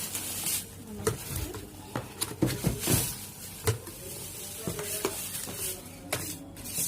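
Kettle packaging being handled during unboxing: crinkling plastic and paper with scattered clicks and knocks.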